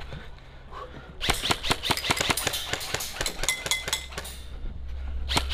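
Airsoft rifle firing a rapid string of shots at pop-up targets, a sharp crack with each shot, starting about a second in and stopping shortly before the end.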